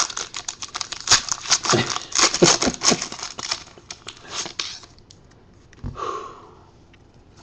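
Foil wrapper of a 2013 Elite football card pack crinkling and tearing as it is ripped open by hand. It makes a dense run of sharp crackles that dies away about five seconds in.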